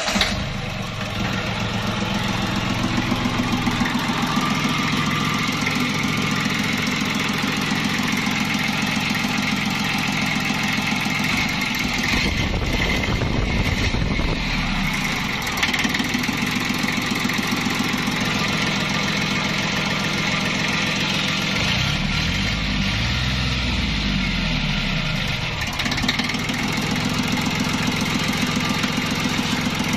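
Yanmar YM1510 tractor's diesel engine running at a steady idle just after starting. Its note rises and falls briefly about twelve seconds in and again around twenty-two seconds in.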